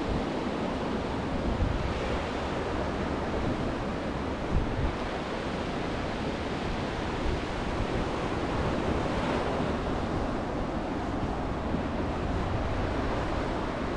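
Sea waves breaking and washing up a pebble beach in a steady surf, with wind buffeting the microphone.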